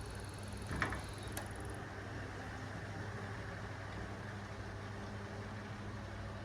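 A steady low hum with no change in pitch, broken by a short knock about a second in.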